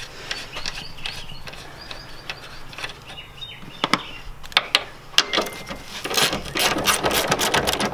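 Socket ratchet clicking as a 14 mm strut-top bolt is backed out on the front shock tower. At first there are scattered single clicks; from about six seconds in comes a fast run of clicking as the ratchet is swung quickly.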